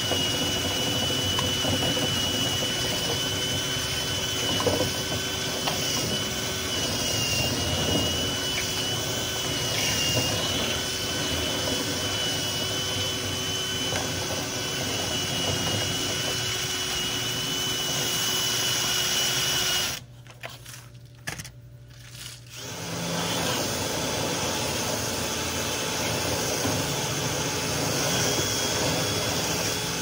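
Power drill spinning a flexible rotary cleaning rod inside a dryer vent duct, a steady mechanical running with a thin high whine. It cuts out for about two seconds about two-thirds of the way through, then runs again without the whine.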